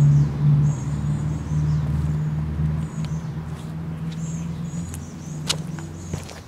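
Car engine running with a steady low hum that slowly fades toward the end, with a sharp click about five and a half seconds in.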